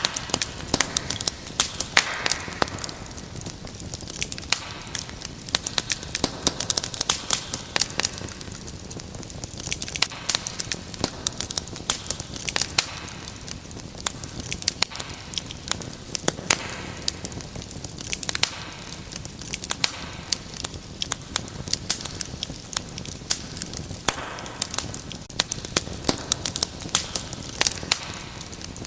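Wood fire crackling in a fireplace: many irregular sharp snaps and pops over a low steady hiss.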